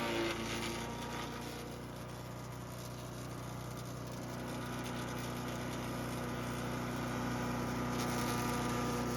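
Champion 224cc four-stroke wood chipper engine running steadily, growing slightly louder through the middle.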